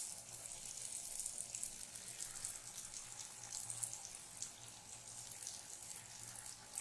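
Jalebi batter spirals deep-frying in hot oil in a pan: a steady, quiet crackling sizzle of bubbling oil.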